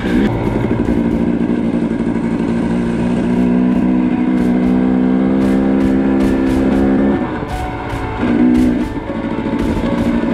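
300cc two-stroke enduro dirt bike engine running on single-track: the revs hold steady for a few seconds, ease off about seven seconds in, and blip up briefly soon after.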